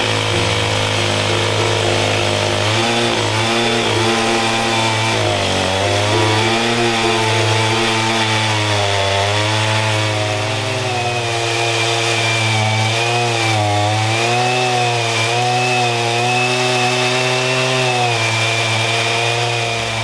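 A large chainsaw running at full throttle, cutting through a thick log. The engine note wavers continuously as the chain bogs and recovers under load in the cut.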